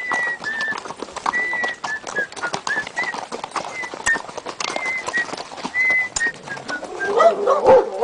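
Horses' hooves clip-clopping at a walk on a dirt track, with a short high squeak recurring every second or so. About seven seconds in, a dog starts barking.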